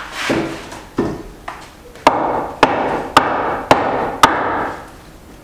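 A run of sharp knocks: a few irregular ones, then five evenly spaced about half a second apart, each trailing into a rushing noise until the next. The sound stops near the end.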